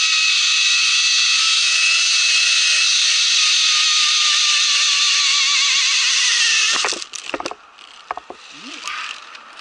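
Zip-line trolley's pulley wheels running fast along the steel cable: a loud steady whine of several tones that sinks a little in pitch as the ride slows, then stops abruptly about seven seconds in. A few sharp knocks and rattles of metal hardware follow.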